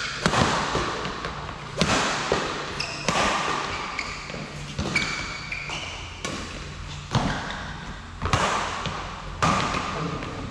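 Badminton rally: rackets striking a shuttlecock about once a second, each hit a sharp crack that rings on in a large hall, about eight hits in all.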